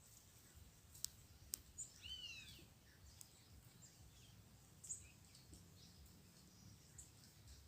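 Faint scattered calls of small birds: a few sharp ticks and short chirps, with one arched, falling call about two seconds in, over a low steady hum.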